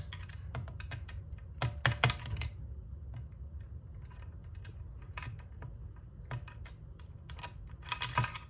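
Small metal clicks and taps as 4L60E transmission parts (valves, springs, retainer clips) are handled and pressed into their bores with a screwdriver. The clicks come irregularly, bunched at the start, around two seconds in and near the end, over a low steady hum.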